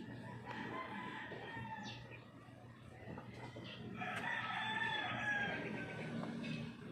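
A rooster crowing: a shorter call about half a second in, then a long drawn-out crow of about two and a half seconds starting around four seconds in, its pitch sinking slowly.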